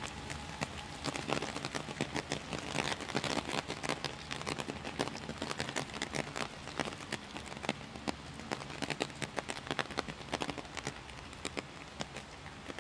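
Heavy rain falling, a steady hiss with many sharp, close drop hits, a little sparser near the end.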